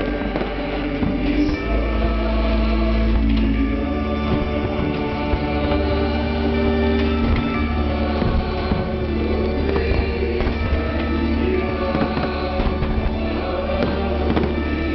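Music with long held notes plays loud and continuously while a fireworks display goes off over it, its shells popping and banging in a scattered, irregular stream.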